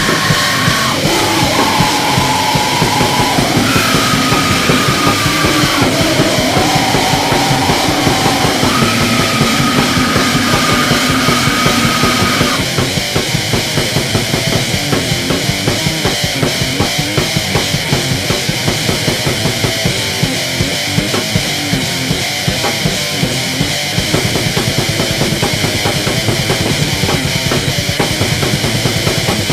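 Grindcore music: distorted, loud band sound over fast, dense drumming. For the first dozen seconds a held high note steps between pitches every couple of seconds; after that the drums pound on rapidly without it.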